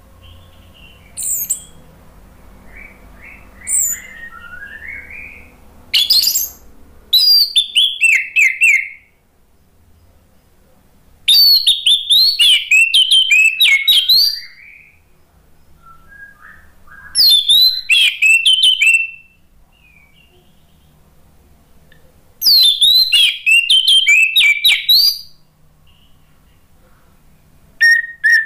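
Orange-headed thrush singing: a few short high calls, then loud, rapidly varied whistled phrases of two to three seconds each, repeated about every five seconds with pauses between.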